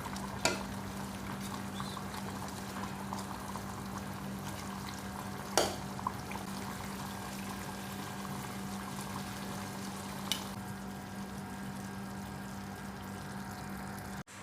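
Pot of beef curry simmering with a faint bubbling over a steady low hum, with three sharp knocks: about half a second in, about halfway through, and about ten seconds in.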